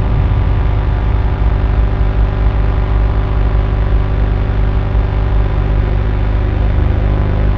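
Layered drone from DIY synthesizers through delay and reverb: a dense stack of steady tones with a heavy, flickering low end.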